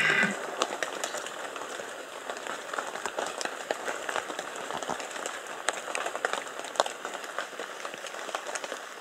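A red deer stag's rutting roar ends just after the start. A steady hiss of many small ticks and crackles follows.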